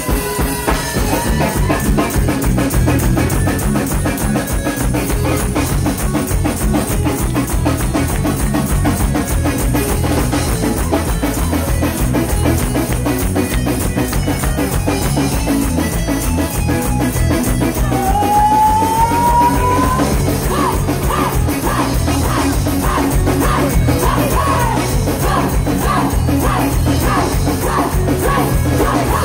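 Ska band playing live: drum kit, bass, electric guitar and a horn section of saxophones, trombone and trumpet, with a sung lead, at a steady beat. About two-thirds of the way through, one held note glides upward, followed by a run of short, evenly repeated notes.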